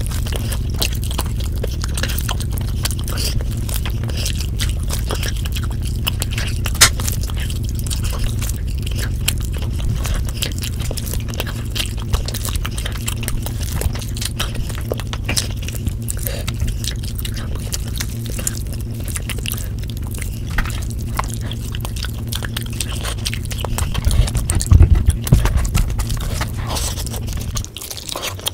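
Close-miked eating sounds: chewing and biting of meat torn from the bone and biryani rice, with many small wet mouth clicks over a steady low hum. A cluster of louder bites comes near the end, as a chicken leg piece is bitten into, and the hum drops away just before the end.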